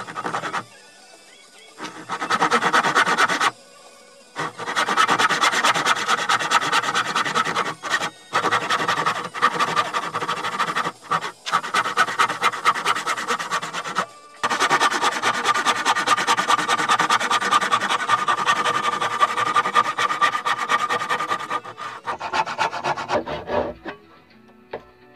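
Hand saw cutting dovetail kerfs into a softwood board held in a vise, with steady back-and-forth strokes. The sawing comes in three runs, with a short pause about four seconds in and another near the middle, and it stops a few seconds before the end.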